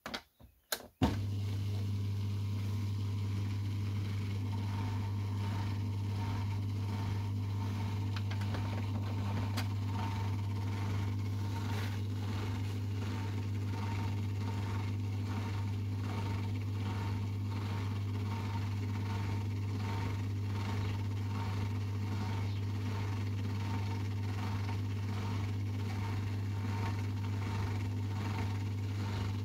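Whirlpool ADP4108 dishwasher: a few clicks as its start button is pressed, then about a second in a steady, loud electrical hum with a faint regular pulsing that runs on unchanged. The machine has a fault and does not start its wash program.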